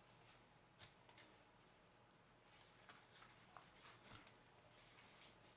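Near silence with a few faint clicks and light handling noises as the plastic housing parts of a Sony Handycam DCR-SR65 camcorder are worked apart by hand; the sharpest click comes about a second in, and a run of smaller ones follows in the second half.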